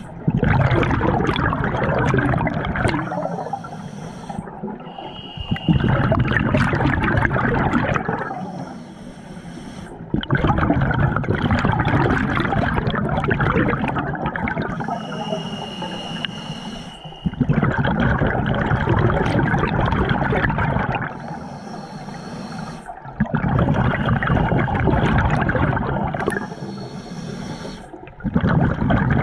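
Scuba diver breathing through a regulator underwater. There are six loud bursts of exhaled bubbles, each a few seconds long, alternating with quieter hissing inhalations, two of which carry a thin whistle.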